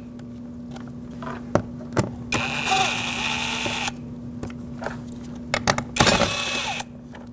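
Power screwdriver whirring in two bursts, backing out Phillips head screws from a metal bracket on a car door panel, with light clicks of the bit and screws in between.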